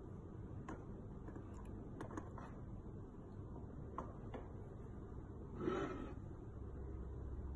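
Faint light clicks of metal tweezers setting a tiny gemstone on the weighing pan of a 0.001 g analytical balance, over low room noise. About six seconds in there is a short, louder rubbing slide.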